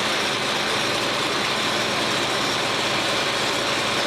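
Heavy diesel construction machinery running steadily.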